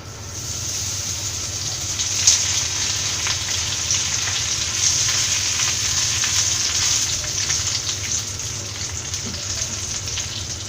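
Curry leaves frying in hot oil, a dense sizzle full of small crackles and pops. It swells over the first couple of seconds and eases a little near the end.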